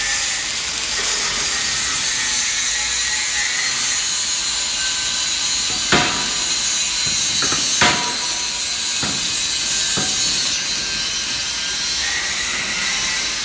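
Electric arc welding: the arc crackles and hisses steadily, with a few sharp knocks in the middle.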